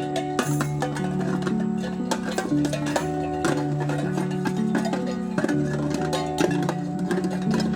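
Music: held low notes that step to a new pitch every second or so, with plucked strings and sharp percussive clicks over them.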